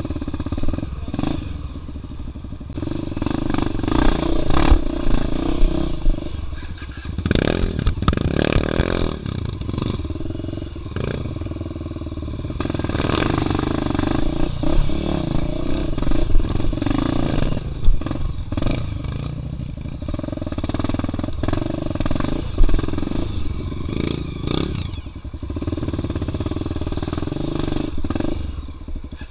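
A 293 cc Honda XR Tornado single-cylinder dirt-bike engine, worked at low revs and repeatedly opened up sharply, with a steep rise about seven to nine seconds in, as it climbs over rocks. Knocks and clatter from the bike striking the rocks cut through the engine note.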